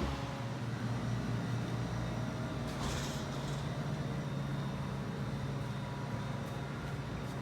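Steady low mechanical hum, like an engine or machinery running, with a brief hiss of noise about three seconds in.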